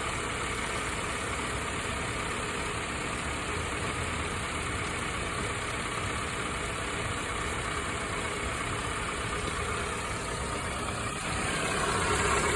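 Car engine idling steadily, turning a newly fitted alternator and drive belt; it gets a little louder near the end.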